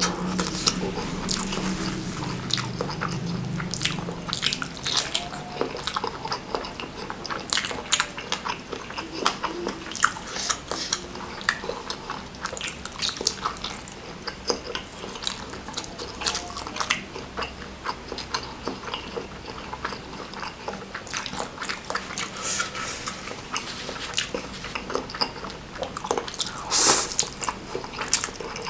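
Close-up eating sounds: wet chewing, slurping and smacking of spicy noodles and meatballs, with many sharp moist clicks of the mouth.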